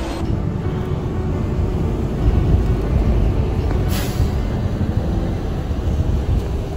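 City bus in motion, heard from inside: steady low engine and road rumble, with a brief hiss about four seconds in.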